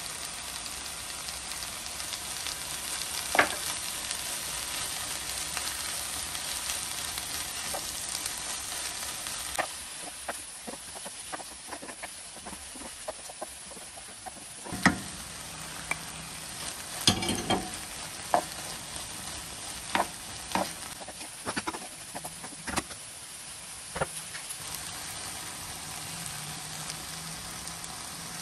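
Cuttlefish and vegetables sizzling in a hot pan while they are stirred with a wooden spatula to work in the gochujang. A steady frying hiss, with scattered sharp knocks of the spatula against the pan, most of them in the middle stretch.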